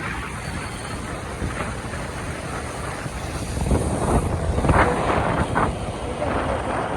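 Wind rumbling on the microphone over road traffic noise, with a few short knocks about four to five and a half seconds in.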